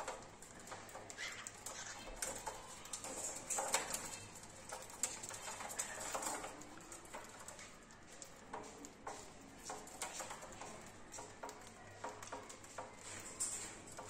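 Cockatiels eating seed from a dish in a metal tray: a busy patter of pecking and seed-cracking clicks, with a few short chirps.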